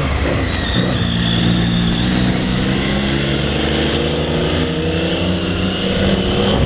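Motorcycle engines running, a steady engine drone.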